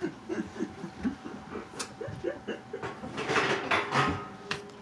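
Indistinct voices talking low, then a short noisy burst of movement or a laugh about three seconds in.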